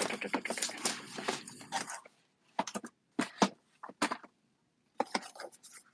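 Handling clatter: a dense rattle of clicks for about two seconds, then a few separate clicks and knocks.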